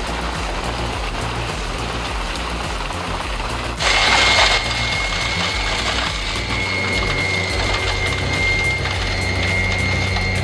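Machine engine running steadily. About four seconds in there is a sudden loud noisy burst lasting under a second, then a steady high-pitched whine over a low hum.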